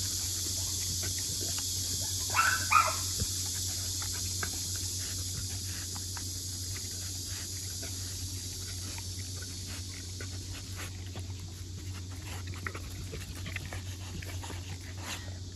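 Rottweiler chewing a half-frozen duck, with irregular crunches and clicks of teeth on the frozen meat and bone. A short two-part dog whine comes about two and a half seconds in and is the loudest moment.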